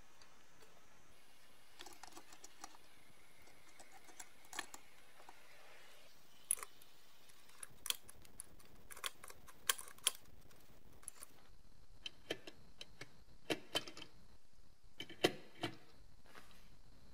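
Scattered small metal clicks and taps as hands fit a chrome scale pan and its pivot fittings onto a balance scale's base. The clicks come irregularly, bunched into two busier stretches in the middle and latter part.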